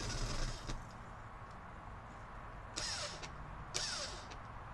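Cordless drill running in short trigger bursts: one ending about half a second in, then two short bursts near three and four seconds in, the motor's whine falling in pitch each time.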